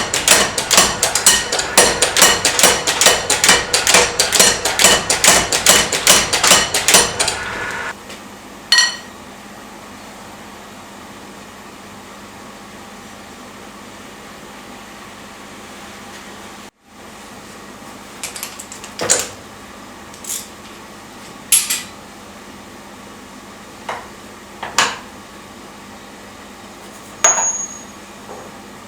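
Fast, even hammer blows on hot steel at the anvil, about four a second, each with a metallic ring, stopping about seven seconds in. Then a low steady hum remains, with a handful of single metal clinks spread through the rest.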